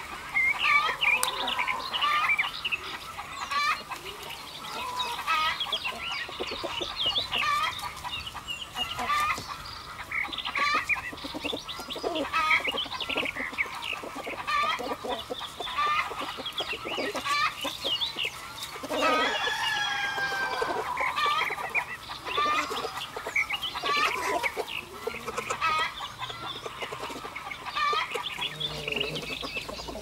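Domestic chickens clucking continually, many short calls following one another, with a rooster crowing once about two-thirds of the way through.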